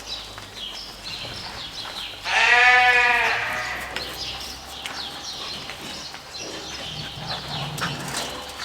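A sheep bleating once, loud and wavering, about two seconds in and lasting about a second, with light knocks and rustling around it.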